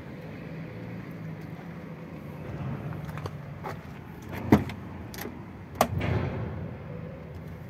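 Truck diesel engine idling steadily with a low hum, with a few sharp clicks and knocks over it, the loudest about four and a half seconds in and another about a second later.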